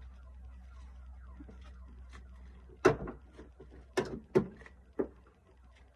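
A low steady hum, then four sharp clicks or knocks in the second half, two of them close together, like hard objects being handled or set down.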